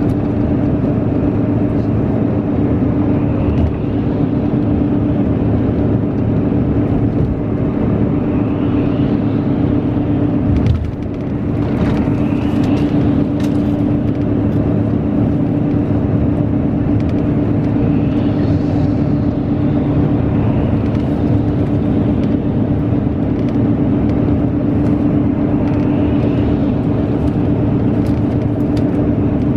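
Steady drone of a highway coach's engine and tyres, heard from inside the passenger cabin while it cruises on the expressway. A brief thump and dip in the noise about eleven seconds in.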